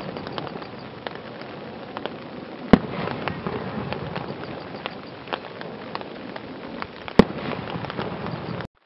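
Aerial firework shells bursting one at a time: two loud booms about four and a half seconds apart, with smaller pops between them over a steady hiss. The sound cuts out abruptly near the end.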